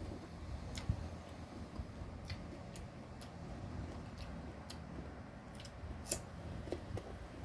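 Crisp bites and mouth clicks of a person chewing unripe green mango slices, a scatter of short sharp snaps with the loudest crunch about six seconds in.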